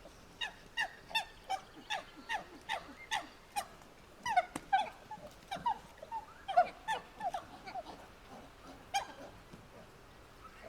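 Ape calls: a run of short, evenly spaced calls at about three a second, then a louder, quicker cluster in the middle, and one last call near the end.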